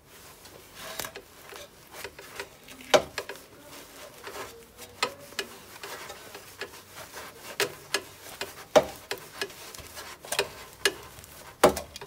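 A T30 Torx bit locked in a pair of grips clicks and scrapes against metal as it is worked a little at a time to crack loose a tandem pump mounting bolt. The clicks and knocks come at irregular intervals, and a few are sharper and louder than the rest.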